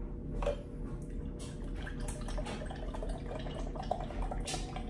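Iced pumpkin spice latte poured from a bottle into a glass mug, the liquid splashing and trickling into the glass.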